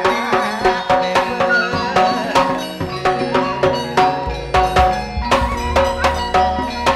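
Instrumental band music: a quick, even drum rhythm under a wavering melody line, with a deep bass coming in about four seconds in.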